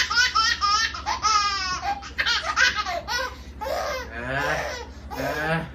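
A baby laughing in a string of bouts, some long and wavering, with short pauses between them.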